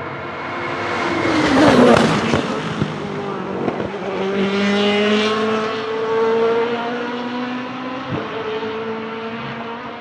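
Rebellion R-13 LMP1 prototype's Gibson GL-458 4.5-litre V8 racing engine passing close, loudest about two seconds in, with its note sliding sharply down as it goes by. It then accelerates away with the pitch climbing, and there is a short break in the note about eight seconds in.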